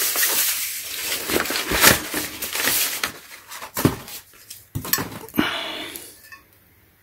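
Brown packing paper rustling and crinkling on the red-painted steel tubes of a portable tire changer as they are handled and unwrapped, with several sharp knocks and clinks of the steel parts.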